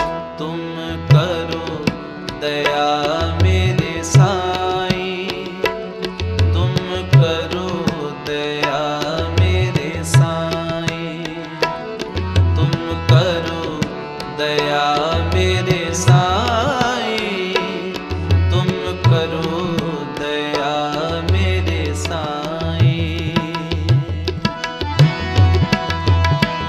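Sikh devotional kirtan music: a melodic line with gliding ornaments over a tabla beat with deep bass-drum strokes.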